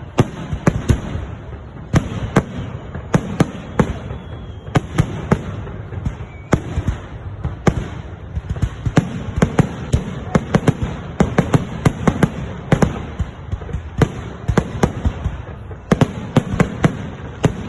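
Fireworks display: shells bursting in a rapid, irregular string of sharp bangs, several a second, over a steady low rumble.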